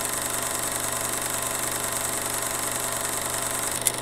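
Steady mechanical whirr with a low hum and a bright hiss on top, used as the sound effect of an animated logo intro; a few sharp clicks come in near the end.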